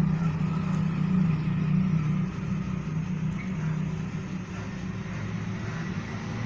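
Steady low engine hum with no clear bird calls over it.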